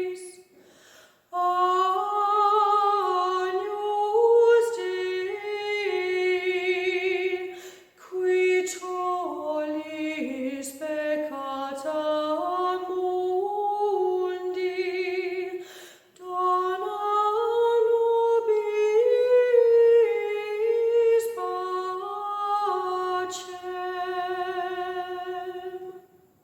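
A solo female voice singing a slow, unaccompanied melody with vibrato, in three long phrases separated by short breaths.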